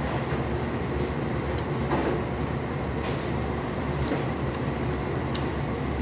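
Steady low rumbling background hum, with a few faint short clicks.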